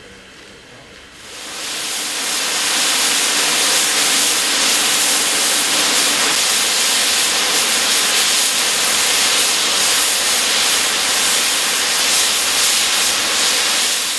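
Safety valves of an LMS Black 5 steam locomotive lifting and blowing off: a loud, steady hiss of steam that swells up about a second in and begins to fade at the very end. The boiler is at full working pressure and is venting the excess.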